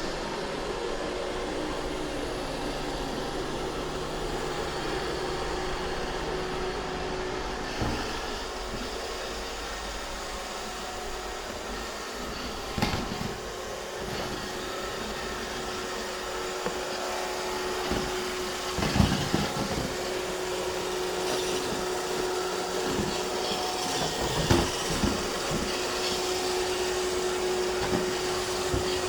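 iRobot Roomba 630 robot vacuum cleaning: a steady motor hum with a held whine, and a few short knocks now and then as it runs.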